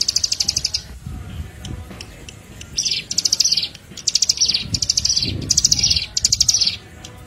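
Bar-winged prinia (ciblek) song: a string of about six high, fast ticking trills, each under a second long, with short gaps between them.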